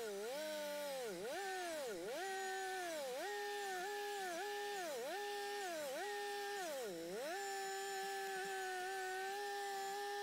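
Engine of a custom bush hog rig working through brush. Its pitch drops sharply and recovers about once a second as it is loaded, then holds steady from about seven seconds in.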